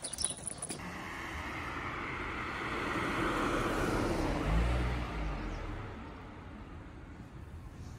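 A car passing by on the road: its tyre and engine noise swells for a few seconds, peaks with a low rumble about four to five seconds in, then fades away.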